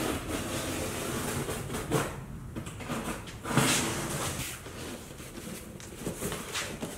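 Large cardboard shipping box being opened and handled: irregular rustling and scraping of cardboard, with two louder rasping scrapes about two and three and a half seconds in.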